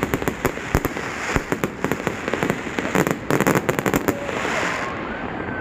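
Aerial fireworks going off: a rapid, uneven string of sharp bangs and crackling, densest in clusters near the start and a little past the middle.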